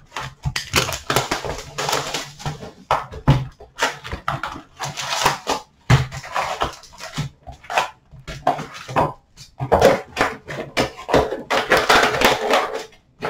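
Plastic shrink-wrap on a hockey card box crinkling and tearing as it is pulled off, then the cardboard box and foil card packs rustling and knocking as the box is opened and the packs are handled. Dense crackling with brief pauses.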